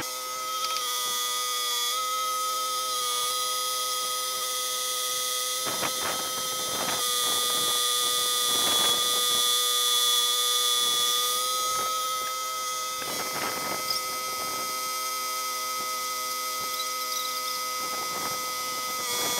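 Hy-Hoe excavator running, with a steady high-pitched whine that swells a little about halfway through as the machine swings.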